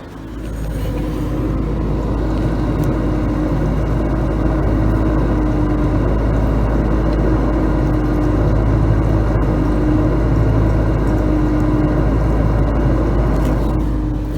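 Samsung dishwasher's pump running, heard close to the bottom of the machine: a steady motor hum with a deep drone and a held tone. It swells in about half a second in and eases off near the end.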